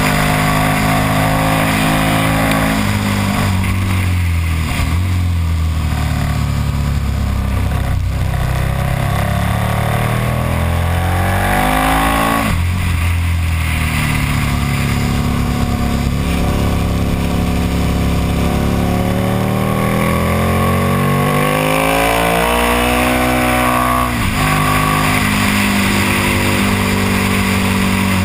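KTM Super Duke's V-twin engine on track, heard from an onboard camera. The pitch falls for several seconds as the bike slows into a corner, climbs for a long stretch as it accelerates out, jumps at a gear change about twelve seconds in, and drops sharply again a little after twenty seconds before picking up near the end. Wind rush runs underneath.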